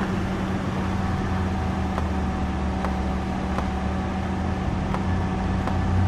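A vehicle engine running at a steady idle: an even low rumble with a constant hum, and a few faint ticks.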